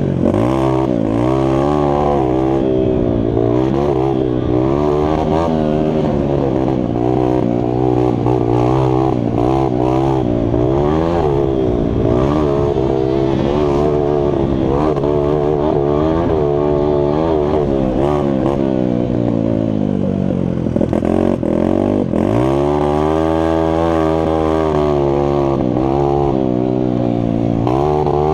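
Mini bike's engine being raced, the revs rising and falling continuously with the throttle. About 21 seconds in the revs drop away sharply, then climb back up.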